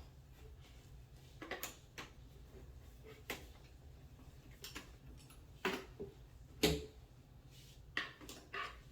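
Irregular clicks and knocks of flat-pack cabinet parts being fitted together and slid into place by hand, with one louder knock about two-thirds of the way through.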